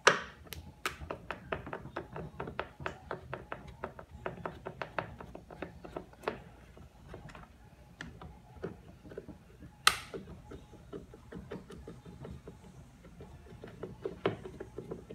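Hand screwdriver backing screws out of the white plastic motor-and-pump housing of a Kärcher K2 pressure washer: a run of small, irregular clicks and ticks of the screwdriver tip and screws in the plastic, with a sharper knock about ten seconds in.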